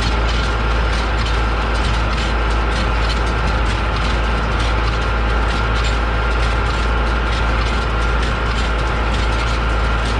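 New Holland Hayliner 67 small square baler running behind a tractor in the field, with a steady mechanical clatter of rapid clicking over the deep drone of the tractor engine.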